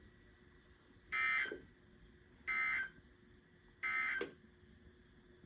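Three short buzzy bursts of SAME digital data tones from a NOAA Weather Radio broadcast, about a second and a half apart: the end-of-message code that closes the weekly test.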